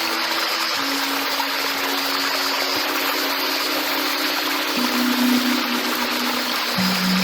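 Steady rush of flowing stream water under minimal electronic music, whose long held low notes step to a new pitch a few times.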